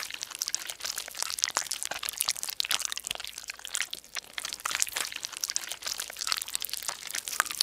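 Cartoon slime sound effect: slime being squished and stretched, a dense, unbroken run of small wet clicks and pops that stops at the very end.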